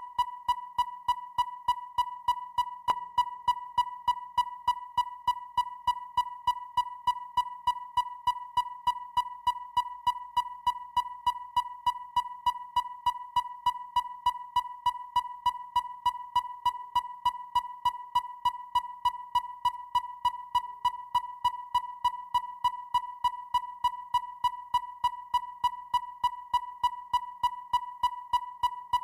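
Electronic depth finder (echo sounder) sound: a steady, high electronic tone pulsing with a sharp tick about three times a second, unchanging throughout.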